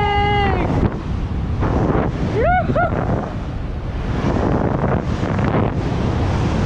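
Wind rushing over the microphone as a splitboard runs fast through powder snow, with a long held whoop that breaks off about half a second in and two short rising-and-falling whoops around two and a half seconds in.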